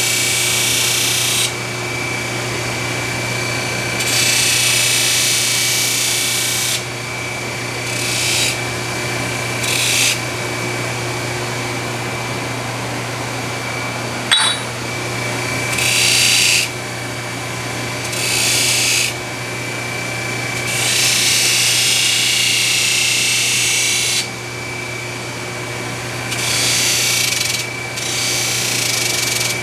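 Metal-cutting machine tool running steadily with a constant hum, as stretches of high hissing cutting noise come and go irregularly. One sharp click about halfway through.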